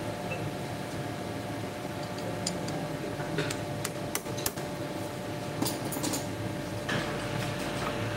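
Light metal clicks and taps of a wheel-removal spanner and the grinding-wheel mounting on a tool-and-cutter grinder as the wheel is being changed, heard over a steady machine hum.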